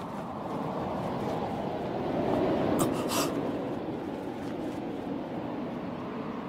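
Steady wind-like rumble of a sound effect, swelling a little midway, with a couple of brief sharp crackles about three seconds in.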